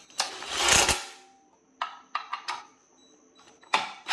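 Metal clicks and clinks of hand tools and bolts being handled and tried against a steel skid plate, with a louder scraping rustle lasting under a second near the start.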